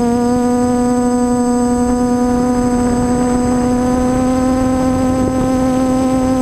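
Multicopter's electric motors and propellers running, heard from the onboard camera: one steady pitched whine with overtones that rises slightly at the start and then holds, over a rough low rumble.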